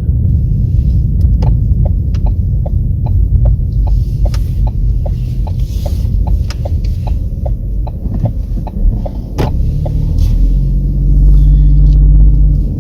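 Car heard from inside the cabin: a steady low engine rumble with a turn-signal indicator ticking about three times a second for several seconds. A sharp click follows, then the engine note grows louder and holds steady near the end.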